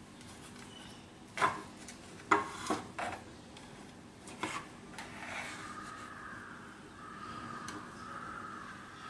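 A table knife clinking and scraping against a steel dhokla steaming plate and a ceramic serving plate as steamed pieces are lifted out: a few sharp clinks in the first half, then a longer steady scraping rub.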